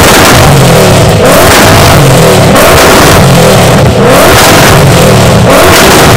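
Ford Mustang's engine revved hard over and over in repeated surges, extremely loud, right at the recording's limit.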